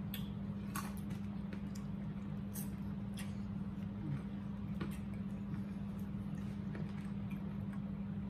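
Eating sounds: chewing and mouth smacking with short sharp clicks of forks against plates, scattered one or two a second, over a steady low hum.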